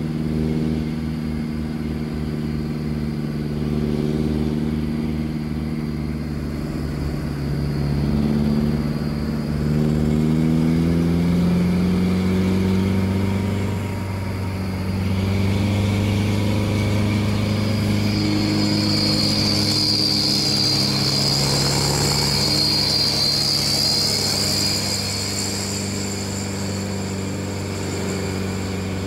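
A truck engine running under load, heard from inside the cab; its pitch climbs about eight seconds in, dips briefly near fourteen seconds, then holds steady. A high whine swells and fades in the second half.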